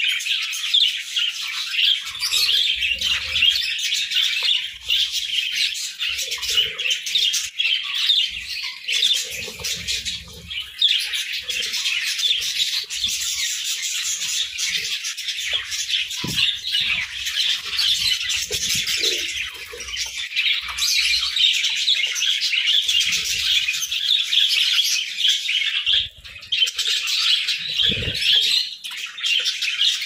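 A flock of budgerigars chattering and chirping nonstop, many birds calling over one another, with a few brief low thuds.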